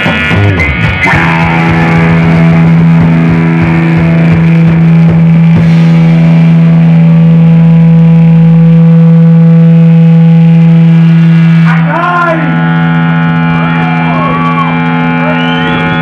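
Live rock band music: an electric guitar chord is held and rings out for about ten seconds, then gives way to sliding notes and a new held chord near the end.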